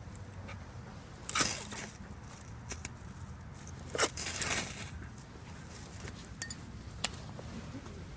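Brief scraping and clinking handling sounds, a cluster about a second in and another around four seconds in, with a single sharp click near the end, over a low steady rumble.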